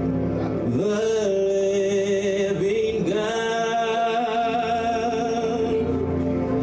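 Gospel praise and worship music: a singer holds long, slightly wavering notes over sustained instrumental accompaniment.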